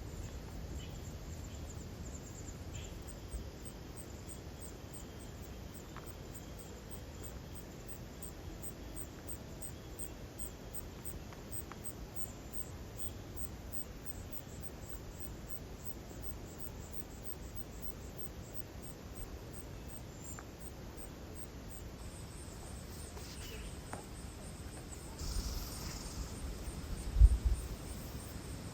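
Crickets chirping steadily, with a rustle and one loud thump near the end.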